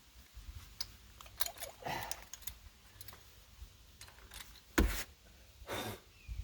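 Scattered light clicks and clinks of tools or metal parts being handled, with a sharper knock a little before five seconds in and a longer scrape-like rattle just before six seconds.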